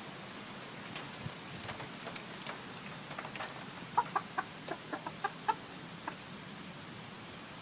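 Mille Fleur d'Uccle bantam hen making the strange sound she makes while preening: faint ticks at first, then a quick run of about seven short clucking notes about halfway through, and one more a moment later.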